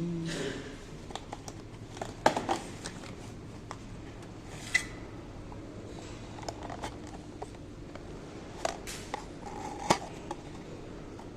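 Automatic cartoning machine at work: light mechanical clicks and snaps at irregular intervals over a faint steady hum.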